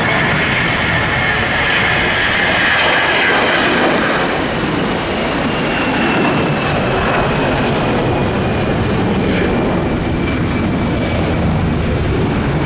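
Airbus A320 jet engines at take-off power, loud and steady, with a high whine that slowly falls in pitch.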